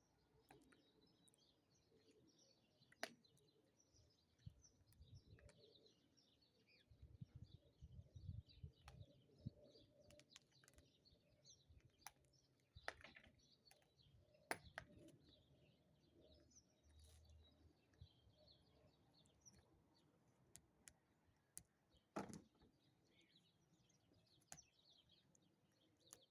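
Near silence with faint bird chirps, a few sharp clicks and a short run of soft low knocks partway through.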